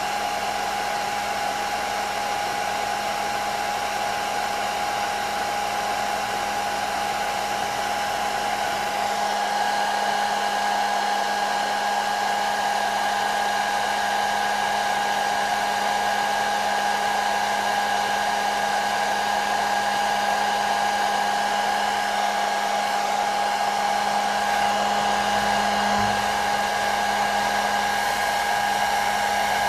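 Hair dryer running steadily: a continuous blowing rush with an even, high motor whine, getting slightly louder about nine seconds in.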